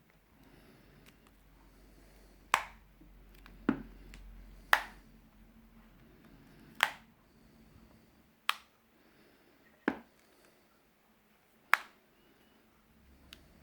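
A series of about seven sharp clicks and taps, irregularly spaced a second or two apart, from fingers and tools handling the phone's glass and frame while the replacement glass is fitted.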